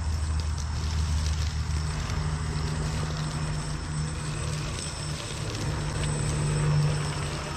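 1/8-scale RC rock crawler's Flash Hobby 1100KV brushless motor and geared drivetrain humming as it crawls; the hum steps up in pitch about two seconds in and holds higher. Faint crackles of the tyres on dry leaves.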